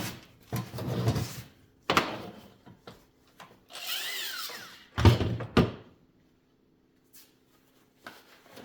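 Metal scrap being handled and shifted on a workbench: scattered knocks and clatter, a scraping slide about four seconds in, and two loud knocks about five seconds in. After that comes a stretch of near quiet with a low steady hum.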